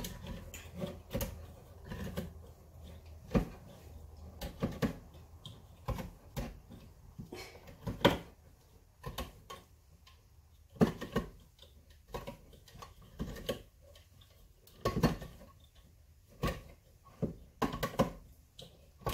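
Irregular metallic clicks and clanks of a can of diced tomatoes being worked open with kitchen utensils, a sharp knock every second or so.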